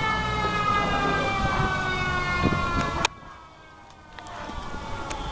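Emergency vehicle siren wailing, its pitch sliding slowly downward, then cutting off abruptly with a click about three seconds in. A low vehicle rumble follows and grows louder toward the end.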